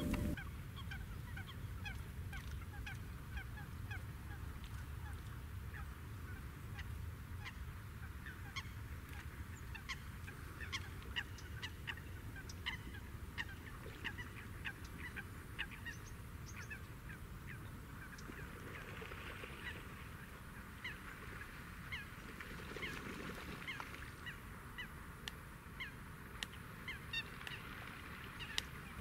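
Waterbirds on a pond calling over and over: many short, high calls, several a second, over a low rumble.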